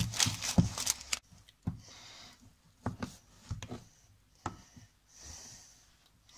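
Packaging crackling for about a second as a block of pressed dates is unwrapped, then a few separate soft knocks as pieces of date are broken off and handled over a steel saucepan, with a soft breath near the end.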